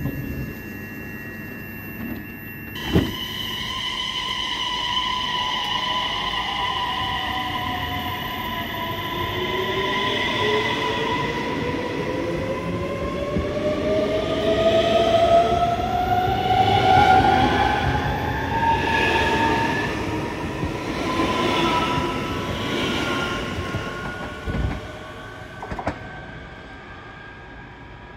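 Electric multiple-unit passenger train pulling away: the whine of its traction motors rises in several tones together as it gathers speed, over the rumble of the wheels on the rails, then fades as the train draws away.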